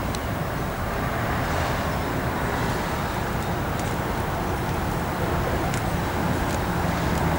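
Steady rumble of road traffic, with a few faint clicks.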